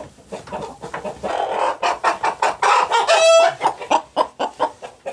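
Backyard chickens clucking in quick, short notes, with one higher, drawn-out squawk about three seconds in.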